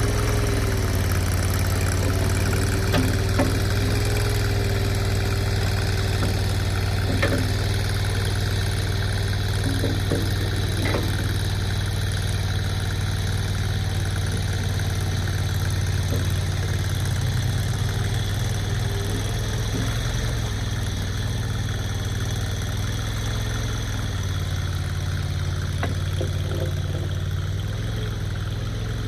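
Mini skid steer's engine running steadily at a fairly even speed, with a wavering whine above the engine note and a few brief knocks.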